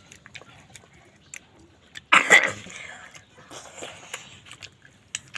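Close-up chewing and mouth sounds of someone eating chicken and dal curry, with small wet clicks throughout. About two seconds in there is one loud, short burst, the loudest sound here.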